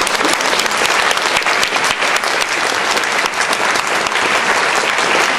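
Audience applauding, many hands clapping at an even level.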